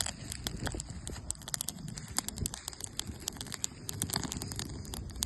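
Insects, likely crickets, chirring in a steady high band, under a stream of sharp, irregular crackling clicks.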